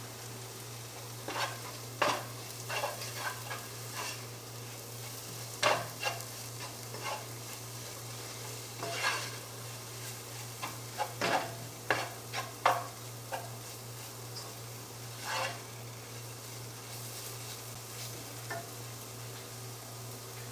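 Masala of onion, tomato and chilli and coriander powders frying in oil in a pan, with a spoon stirring and scraping against the pan in irregular strokes over a steady low hum. The masala is being roasted until the spice powders lose their raw taste.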